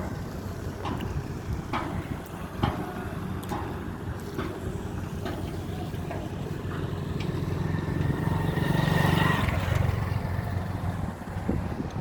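A boat's engine running steadily as a low drone, growing louder about eight to ten seconds in and then easing off, with scattered light clicks and knocks.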